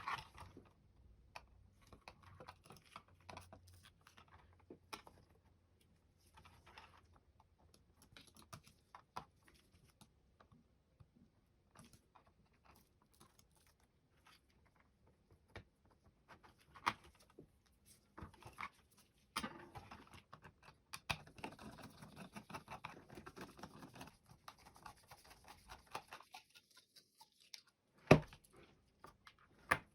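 Small plastic clicks, taps and scraping as a computer mouse is worked on by hand and taken apart, busier for a few seconds past the middle, with one sharp click near the end.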